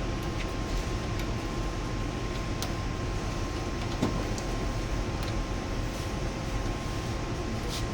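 Steady machine noise with a constant whine and low rumble, with a few faint clicks.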